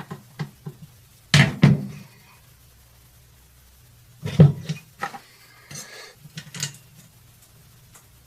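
Small metal parts and tools clinking and knocking as the ignition coil is fitted to a small two-stroke engine. A few sharp clinks, loudest about a second and a half in and again about four and a half seconds in, with lighter ticks between.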